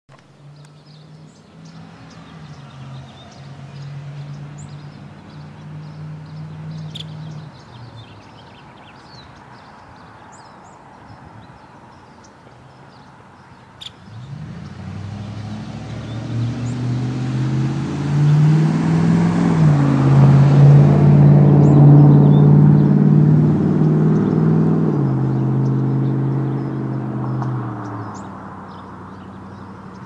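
Motor vehicle passing: a faint engine hum in the first several seconds, then a louder engine hum with road hiss that swells from about halfway through, is loudest in the second half and fades away near the end.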